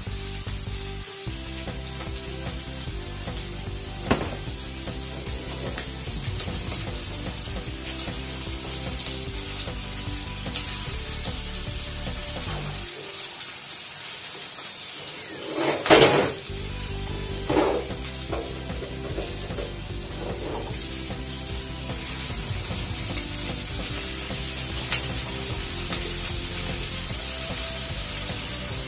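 Food sizzling in a frying pan over a gas flame as it is stirred with chopsticks, with a steady frying hiss. A couple of sharp knocks about halfway through, with a few lighter clicks around them.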